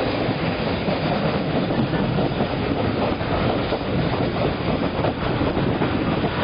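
TAZARA passenger train running along the line, heard at an open carriage window: a steady noise of the wheels on the rails.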